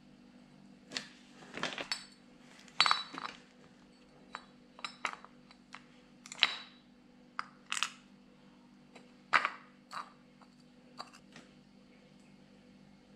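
Metal parts of an HDi 136 diesel starter motor handled by hand: irregular clicks, knocks and clinks as the planetary reduction gear set and its housing are turned and pressed together, some with a short metallic ring.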